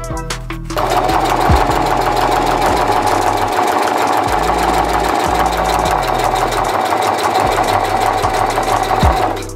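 Electric sewing machine running steadily, stitching through fabric with a rapid even chatter of the needle; it starts about a second in and stops just before the end.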